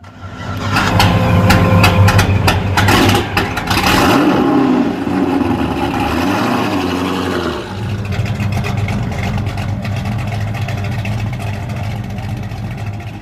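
Saturn Aura's engine revving, with a clatter of sharp clicks over the first four seconds and rises and falls in pitch, then settling to a steady idle about eight seconds in.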